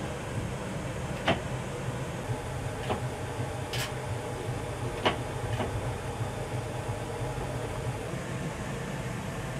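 Steady low hum inside an electric tram's driver cab, with a few short sharp clicks scattered through the first half.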